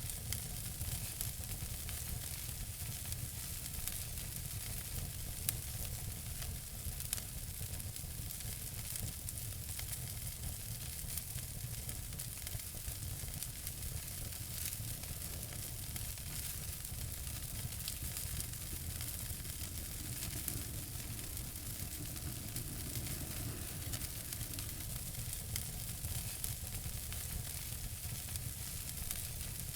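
Wood fire burning in a fireplace, a steady hiss with many small sharp crackles and a few louder pops.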